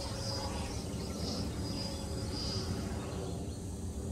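Wind rumbling on the microphone, with the faint whine of a distant 90mm electric ducted-fan RC jet that fades away within the first second.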